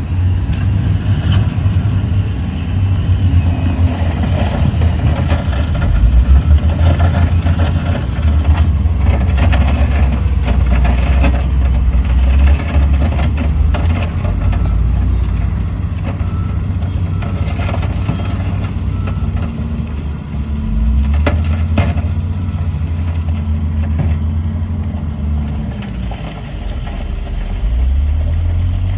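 Diesel engine of heavy earthmoving machinery running under load, a steady low drone whose note shifts a couple of times in the second half, with scattered short knocks and clanks.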